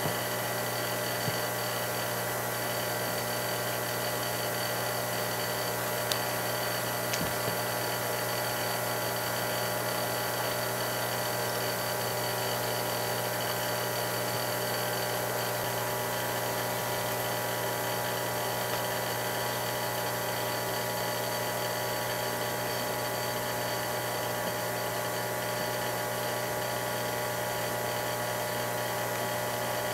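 The pumps and fans of a CO2 laser cutter's cooling and power units running steadily: an even electric hum and whine that does not change, with a couple of faint clicks.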